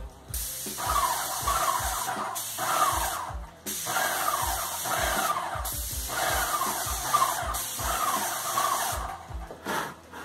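Graco Magnum LTS 15 airless paint sprayer spraying paint at a ceiling: a loud hiss from the gun tip in several long bursts with short breaks as the trigger is pulled and released, stopping about nine seconds in. The sprayer's piston pump runs underneath with a rhythmic mechanical pulsing.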